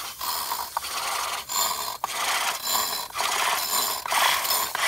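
Ratchet wrench worked back and forth on a nut in repeated short strokes, clicking about every half second, turning over a cut-in-half two-stroke weed trimmer engine.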